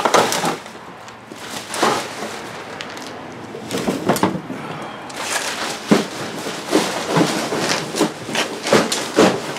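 Cardboard boxes and packaging being handled and tossed aside: irregular rustles, crackles and knocks, busier in the second half.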